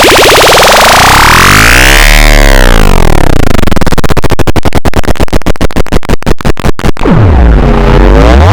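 A cartoon fart sound run through heavy pitch-warping and chorus-type audio effects, turned into loud, distorted electronic tones. The tones sweep up and then down, break into a fast stuttering pulse about halfway through, and swoop low near the end.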